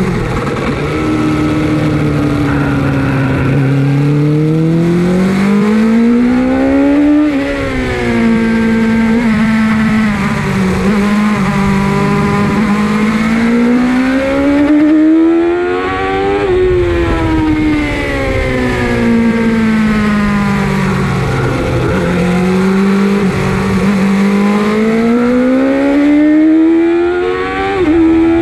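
Suzuki GSX-R 750 SRAD's inline four-cylinder engine heard onboard at speed, revs climbing hard and then falling off, three times over as the bike accelerates and slows on the circuit.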